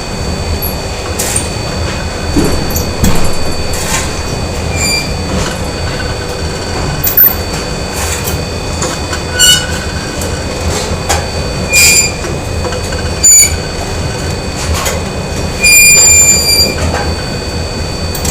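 Factory machinery ambience: a steady machine hum with irregular metallic clanks and bangs and a few short high-pitched squeals. The loudest is a squeal of about a second near the end.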